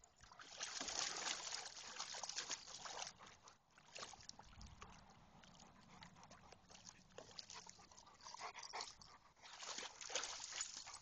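Dogs splashing about in a swimming pool, water sloshing in bursts near the start and again about eight to ten seconds in, with a dog's voice at times.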